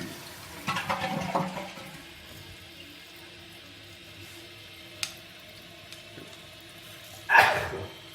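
2008 Kohler Kelston toilet flushing with its tank lid off: a rush of water about a second in, then the tank refilling with a steady hiss. A loud sneeze near the end.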